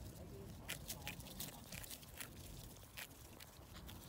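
Mute swan and greylag goose tearing grass with their bills: faint, irregular crisp snips and crunches, a couple a second.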